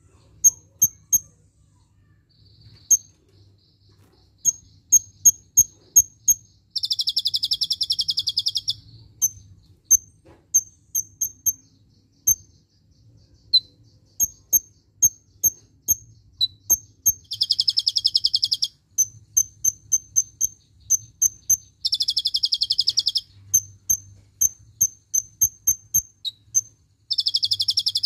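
Caged sunbird (kolibri ninja) singing: a run of sharp, high chirps, broken four times by a fast rattling trill that lasts about two seconds each time.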